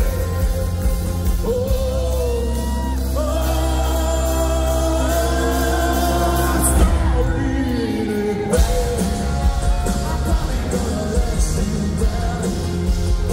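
Live rock band playing loud through a concert PA, with electric and acoustic guitars, bass and drums under sung vocals that hold long notes.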